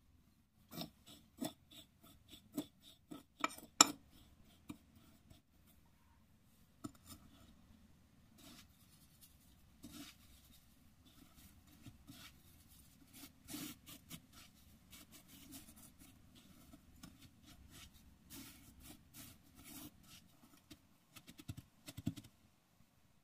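Halved zucchini pressed and rubbed into a plate of breadcrumbs and flour: soft, dry, gritty scratching of crumbs against the plate, after a run of sharp clicks in the first few seconds.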